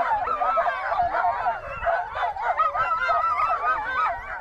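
A chorus of many sled dogs yelping and howling together, a dense continuous tangle of overlapping high, wavering calls.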